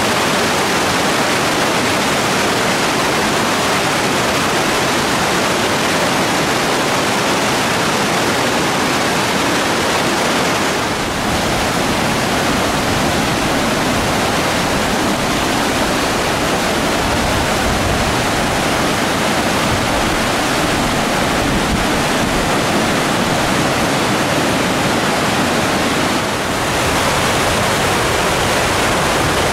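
Glacial meltwater river rushing over rocks in whitewater rapids: a loud, steady, even rush of water, dipping briefly twice.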